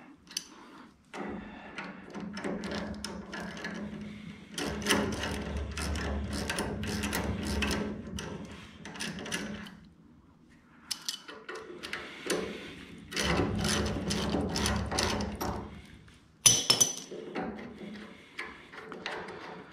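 Ratchet wrench clicking in several long runs as the steel caliper mounting bolts are spun in on the front spindle, with a sharp metal clink about sixteen seconds in.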